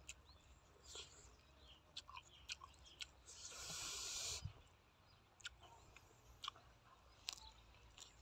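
Quiet eating by hand: small wet clicks and smacks of chewing and of fingers picking through a tray of pork offal and raw vegetables, with a rustle of about a second near the middle.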